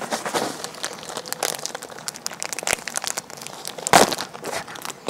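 Plastic and foil snack packets and a clear plastic bag crinkling and crackling as they are handled, a busy run of small crackles with a louder rustle about four seconds in.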